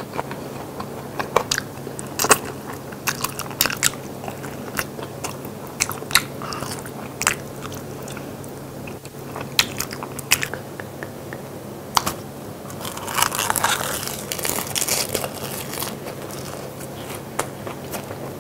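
Close-miked eating of braised pig's trotters (jokbal) and a raw green chili pepper: wet chewing broken by sharp crunchy bites at irregular intervals, with a busier stretch of crunching about two-thirds of the way through.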